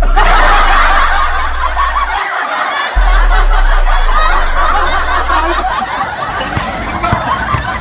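A group of people laughing loudly together over a deep, steady bass note. The bass cuts out for under a second about two seconds in, returns, then stops near six seconds.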